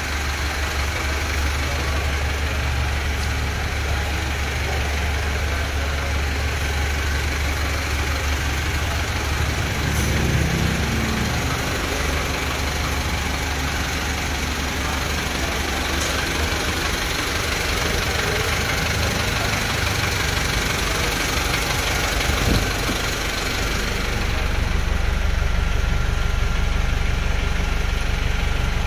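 Toyota Land Cruiser hardtop's engine idling steadily.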